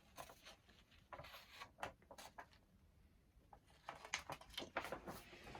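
Near silence with faint scattered small taps and light knocks, a little busier near the end, like quiet handling of objects.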